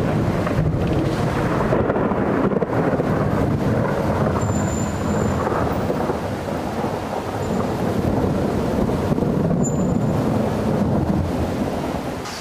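Long rolling thunder rumbling on for many seconds, easing off near the end.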